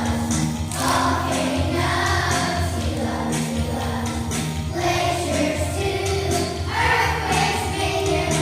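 A group of young children singing together in chorus over instrumental backing music.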